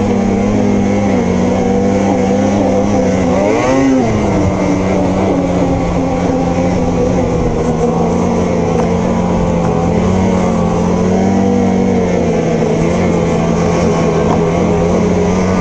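Two-stroke snowmobile engine running at a steady speed. Its pitch rises and falls briefly about four seconds in.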